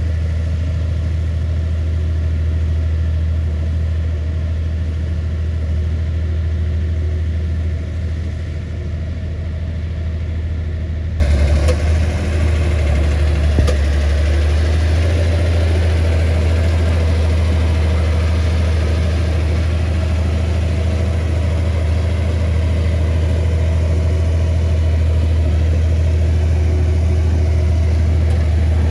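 Komatsu bulldozer's diesel engine running with a steady low drone. About eleven seconds in the sound changes abruptly and gets louder and rougher, then holds steady.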